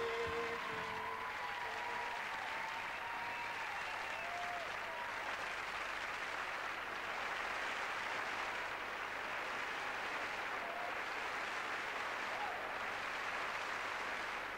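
Theatre audience applauding steadily at the end of a song, as the band's last held note dies away in the first second.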